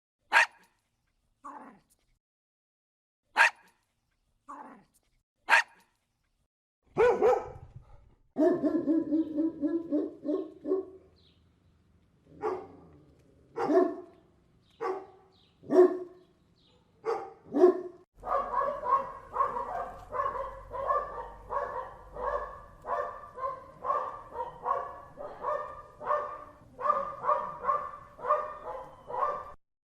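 Dogs barking: a few separate sharp barks at first, then quicker runs of barks, and in the second half a steady rapid string of barks, about two a second.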